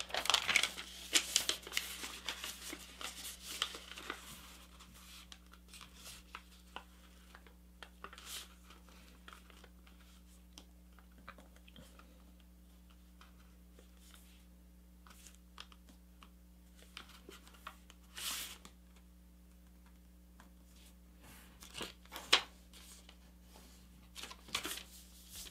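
A sheet of paper rustling and crinkling as it is folded and creased by hand, with soft scrapes as the fold is pressed flat. The sounds are busiest in the first few seconds, then come as scattered brief rustles.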